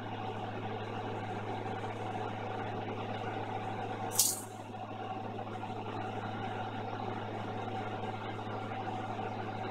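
Steady electric machine hum with an even low drone, broken by one short, sharp hiss about four seconds in.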